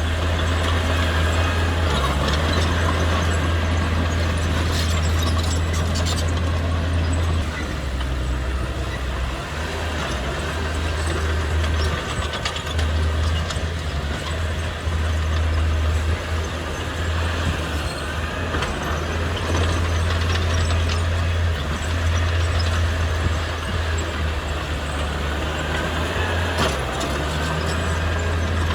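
Heavy diesel earthmoving machinery running under load: a deep steady engine drone that rises and falls, with occasional faint metallic clicks and squeaks.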